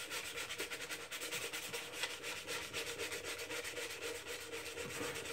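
220-grit sandpaper over a putty knife rubbing back and forth on a mandolin's finished top under the bridge, in quick, even side-to-side strokes.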